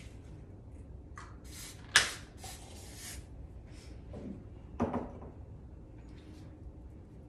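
A spray bottle let off in three short hissing sprays about two seconds in, the loudest beginning with a sharp click. A brief soft vocal sound comes a little before five seconds in.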